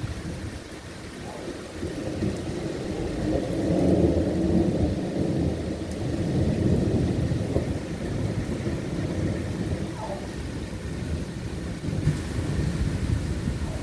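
Long rolling thunder over steady rain. The deep rumble builds, is loudest about four seconds in, swells again around seven seconds, then slowly eases back under the rain hiss.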